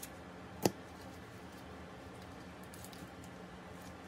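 A single sharp click a little over half a second in, over a faint steady room hum, as a heavily taped package is worked open.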